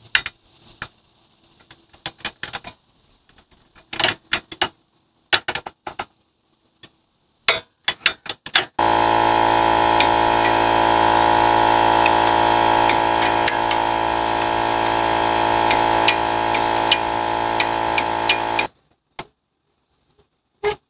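Metal clicks and clinks of a hand wrench working the Jeep's front suspension bolts. About nine seconds in, a loud, steady motor-like whir starts suddenly, runs for about ten seconds with clicks over it, and cuts off suddenly.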